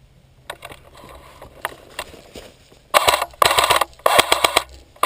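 Airsoft gun firing: a few single clicks, then about three seconds in, three short rapid-fire bursts of sharp cracks, each under a second long, with another burst starting at the end.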